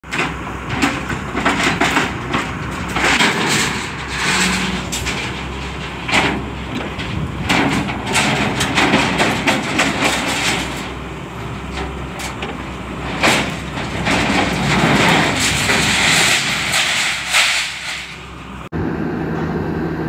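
Excavator's diesel engine running while bundles of steel reinforcing bars clank and rattle against each other and the truck bed as the bucket lifts them off a flatbed truck. Near the end the sound cuts abruptly to a steadier machine hum.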